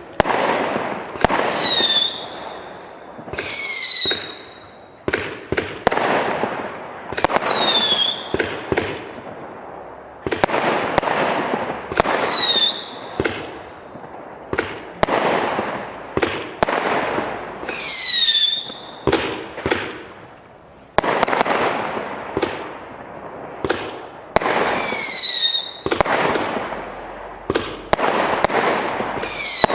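A 504-shot, 0.6-inch firework cake firing continuously, with rapid launch thumps and loud bursts. Every few seconds there is a whistle that falls in pitch, and crackling follows many of the bursts.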